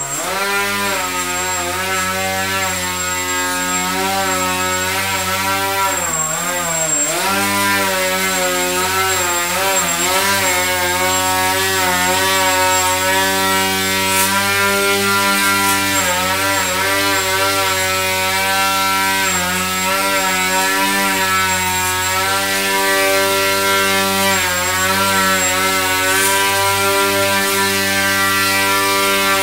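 Electric motor and propeller of a small EPP foam model airplane whining while it hangs nose-up in a hover. The pitch rises and falls continually with the throttle, with a sharp dip about six to seven seconds in.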